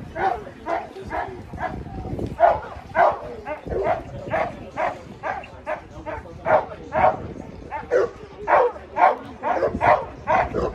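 A dog barking over and over at a steady pace, about two short barks a second.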